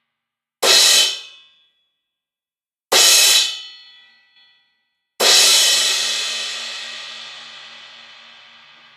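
An 18-inch 1CorTone YS Master Crash cymbal struck three times. The first two crashes are cut short within about a second; the third, about five seconds in, is left to ring and fades slowly.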